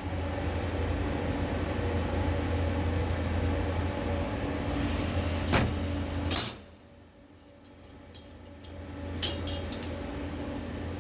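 Amada CTS-900NT CNC tapping machine running with a steady hum. There are sharp metallic clicks about five and a half and six and a half seconds in. The sound then drops away suddenly for about two seconds and comes back with a quick cluster of clicks near the end.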